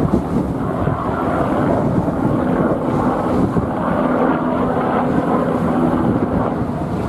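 Sikorsky S-92 coastguard search-and-rescue helicopter flying low overhead: loud, steady rotor beat and turbine noise.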